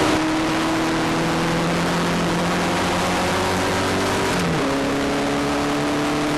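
Onboard engine note of a single-seater racing car under acceleration, its pitch climbing steadily, then dropping abruptly at an upshift about four and a half seconds in before climbing again, under a loud rush of wind on the microphone.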